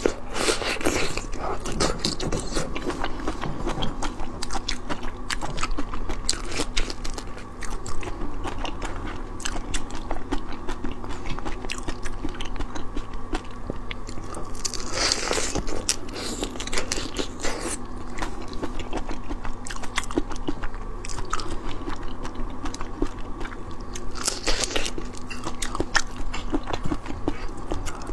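Close-miked biting and chewing of whole shell-on shrimp in spicy marinade: steady crunching of the shells and wet, crackly mouth sounds, with a few louder moments about 15 and 24 seconds in.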